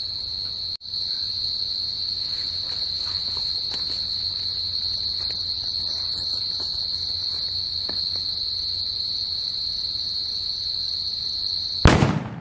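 Crickets chirping in a steady high trill, then near the end one loud bang as a large hydro firecracker (elephant bomb) explodes, a sound called 'bhayankar' (tremendous).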